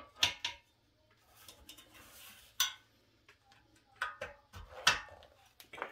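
Several sharp metal clinks and knocks as a Honda Z50 exhaust pipe and its mounting bolt are worked by hand into place against the engine, with a soft rustle of handling between them.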